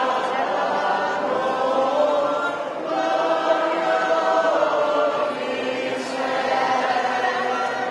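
Mixed group of men and women singing together from song sheets, in long held phrases with short breaks about three and five and a half seconds in.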